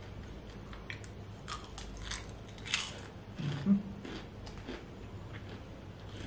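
Close-up mouth sounds of chewing crispy breaded fried chicken: irregular crunches and crackles of the coating between the teeth, with a short hum of the voice about three and a half seconds in.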